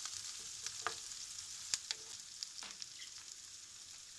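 Chopped onions sizzling in vegetable oil in a nonstick frying pan as they are sautéed and stirred with a wooden spoon: a steady, fairly quiet frying hiss with a few sharp clicks.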